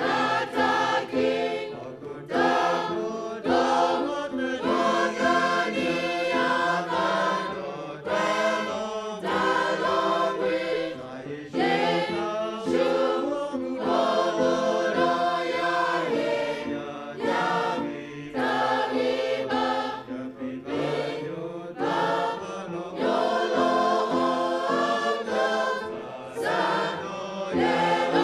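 Mixed choir of men and women singing together, carried in phrases with short breaks between them.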